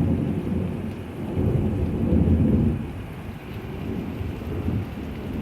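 Thunder rumbling in long rolls over steady rain. The rumble swells about a second and a half in, eases off after about three seconds, and builds again more faintly near the end.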